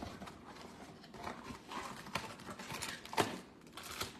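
Cardboard blaster box of trading cards being opened by hand: flaps pulled and torn, with light rustling and scattered taps, one sharper knock about three seconds in.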